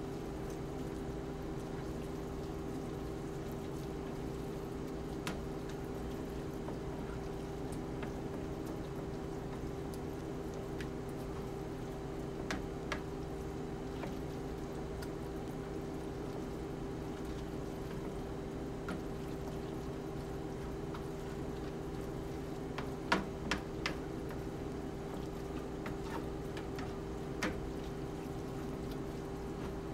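Ground venison cooking in a skillet and being stirred with a spoon, which scrapes and knocks against the pan a few times, three knocks close together a little after the middle, over a steady hum.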